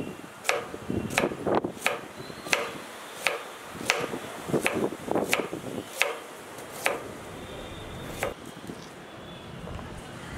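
Knife chopping food on a wooden cutting board: a series of sharp chops, roughly two a second at an uneven pace, thinning out after about seven seconds with one last chop near eight seconds.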